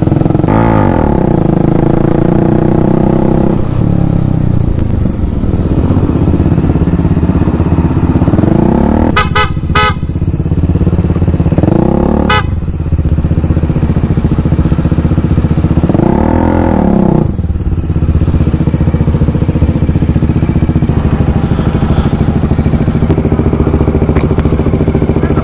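Kawasaki Dominar 400's single-cylinder engine running under way, its pitch rising and falling several times as it is revved up and eased off. A few short horn toots come about nine to ten seconds in.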